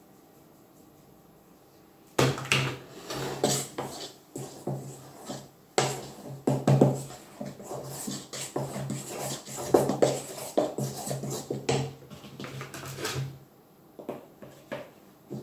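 A utensil scraping and knocking against a stainless steel mixing bowl in quick, irregular strokes as dry ingredients are folded into cake batter. The strokes start about two seconds in and stop about two seconds before the end, which has only a few light taps.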